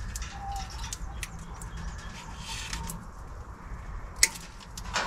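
Wire cutters and hand handling at a condensing-unit fan motor's leads, with small clicks throughout and one sharp snip about four seconds in as the motor's white fourth lead is cut off.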